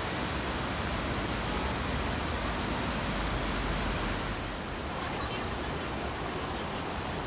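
Steady rushing of river water tumbling over a low weir and shallow rapids, a little quieter from about halfway through.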